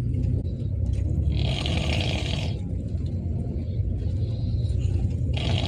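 Loud snoring: a harsh, rasping snore about every four seconds, once in the middle and again near the end, over a steady low rumble.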